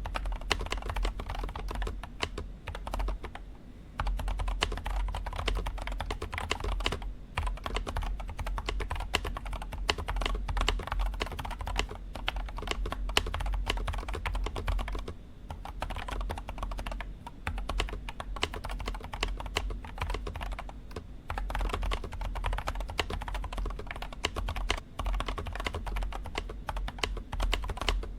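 Steady typing on an RK Royal Kludge F99 mechanical keyboard with silent linear switches: a dense run of muted key clacks with some clunk from the space bar. The typing breaks off briefly about three seconds in and again about fifteen seconds in.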